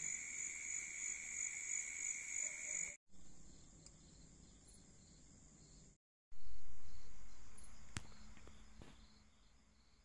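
Night chorus of crickets and other insects: steady high trilling that cuts off abruptly about three seconds in and gives way to a fainter insect hum. After another cut, a loud low rumble starts and fades away over several seconds, with a sharp click partway through.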